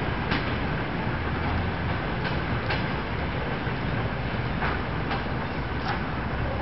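Passenger train pulling slowly away: the coaches' wheels make a steady low rumble on the rails, with a few clicks, some in close pairs, as the wheels cross rail joints.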